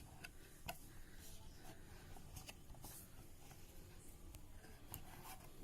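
Near silence: room tone with a few faint, scattered clicks and light rustling, like small handling noises.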